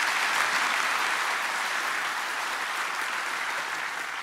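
Applause from a large audience filling a big auditorium: steady clapping that begins to ease off near the end.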